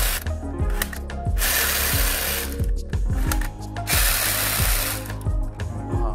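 Toy submachine gun firing rattling bursts about a second long, roughly every two and a half seconds, over background music with a steady beat.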